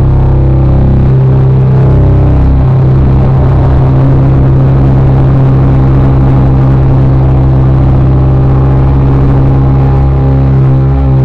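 Very loud live music heard from within the crowd: a steady, low bass drone with a thick layer of overtones above it, held without a break.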